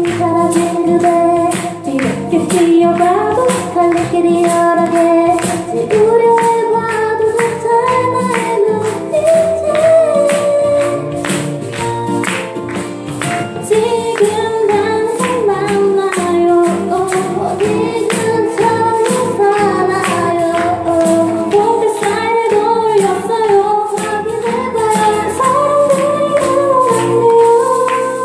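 A live band plays a song, with a sung melody over a steady drum beat.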